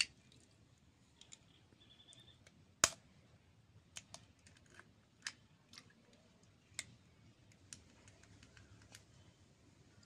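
Eggs being cracked open and broken into a stainless-steel bowl: a few sharp shell cracks and taps, the loudest about three seconds in, with lighter clicks of shell in between.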